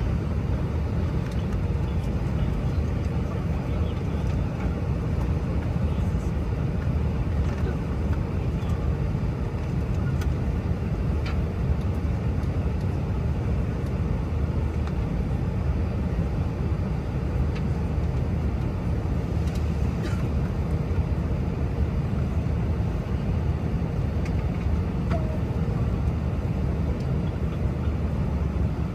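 Steady low drone of an Airbus A319's engines and airflow heard inside the passenger cabin, with a few faint clicks.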